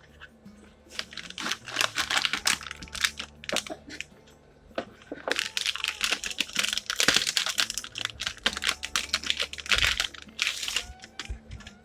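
Rapid small clicks and plastic crinkling as a new replacement laptop battery and its packaging are handled, coming in three bunches of activity.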